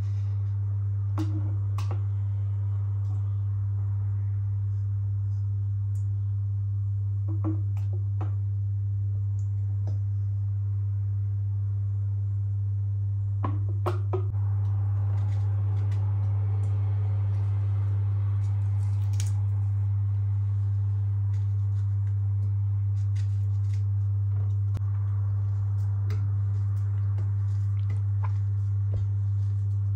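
A steady low hum that gets slightly louder about halfway through, with scattered light clicks and taps.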